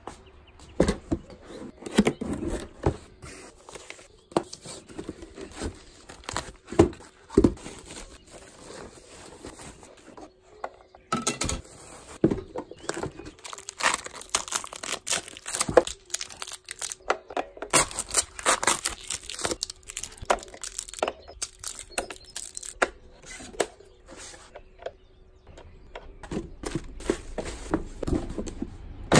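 Cardboard box and paper packing being handled and unpacked: irregular rustling, crinkling and tearing with scattered sharp knocks.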